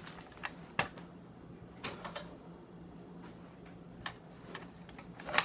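A few irregularly spaced light clicks and taps, the sharpest about a second in, over a faint steady hum.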